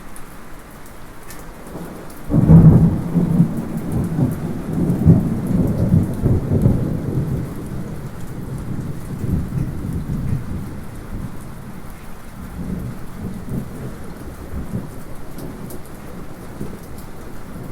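Light steady rain with a roll of thunder, not too close, that breaks in suddenly a couple of seconds in and rumbles low for several seconds before fading back into the rain.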